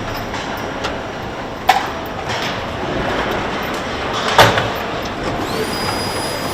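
Car assembly line machinery: a steady industrial din with two sharp clunks, the second the loudest, and a high steady tone coming in near the end.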